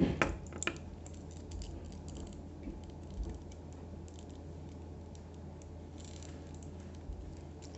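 Faint clicking and rattling of plastic Lego Technic pieces being handled as a rubber band is worked through a beam's hole by hand, with a couple of sharper clicks at the start.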